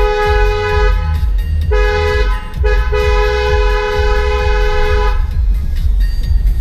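Car horn honking in blasts: a short one, a quick tap, then a long blast of about two seconds, over a steady low rumble.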